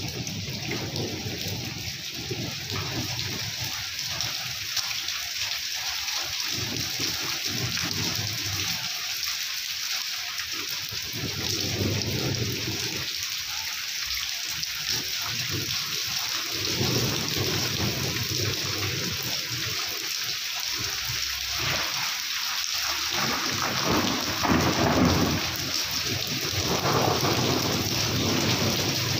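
Heavy rain pouring steadily, with low rumbles of thunder swelling and fading several times.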